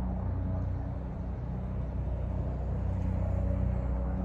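Steady low hum of a running engine, an even drone with no change in pitch.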